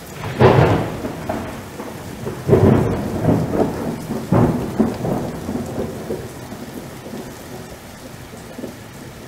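Thunderstorm: several rolls of thunder over steady rain, the loudest about half a second in and others about two and a half and four and a half seconds in, dying down to the rain alone.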